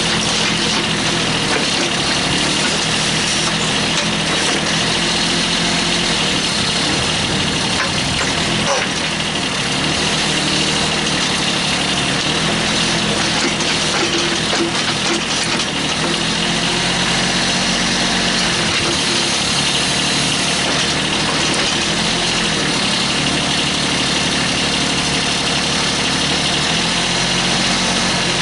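Kubota B8200 compact tractor's three-cylinder diesel engine running steadily while it drives the backhoe hydraulics, its note shifting a little now and then as the digging arm takes load.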